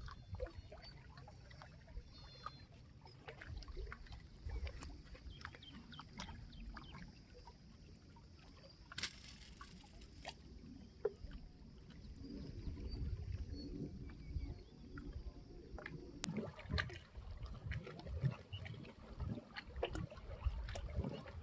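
Faint water trickling and splashing with many scattered light knocks, and a brief hiss about nine seconds in.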